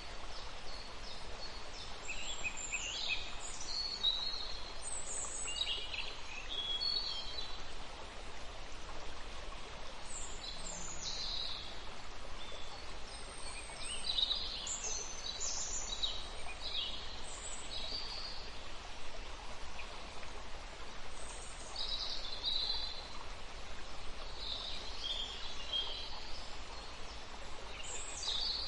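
Steady rush of a rocky river's flowing water, with birds chirping in short calls on and off over it.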